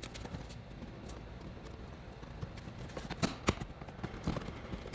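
Scattered plastic clicks and knocks of a truck's lower dash trim panel being worked loose and pulled out, the sharpest knocks a little over three seconds in.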